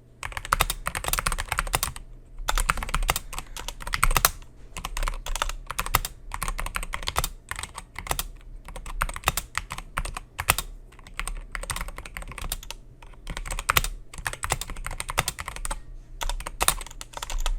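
Typing on a SteelSeries Apex Pro TKL mechanical keyboard with its OmniPoint switches and HyperX Pudding keycaps. Irregular runs of key clacks are broken by short pauses, in the uneven rhythm of slow hunt-and-peck typing.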